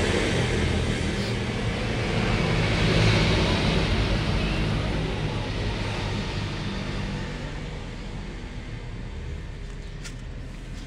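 A passing motor vehicle: engine and road noise that swells about three seconds in, then fades away steadily.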